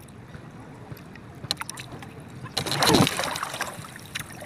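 Water lapping around a small outrigger canoe. About three seconds in there is a short, loud splash with a falling tone as the baited handline is tossed into the sea.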